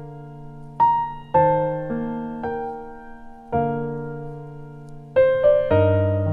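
Soft background piano music: single notes and chords struck slowly, each ringing and fading, with a quicker run of notes about five seconds in.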